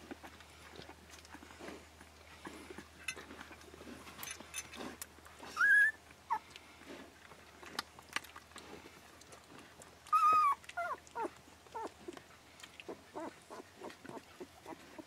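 Twelve-day-old Akita puppies squeaking while nursing: a high rising squeal about six seconds in and a louder falling one about ten seconds in, followed by smaller squeaks. Soft wet clicks of suckling and licking run underneath.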